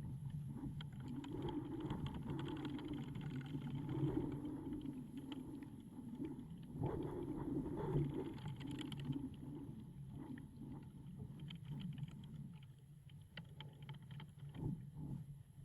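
Wooden ship's timbers creaking in the wind, wavering creaks over a steady low background, with scattered small clicks and ticks of the wood; the creaking swells a little past the middle.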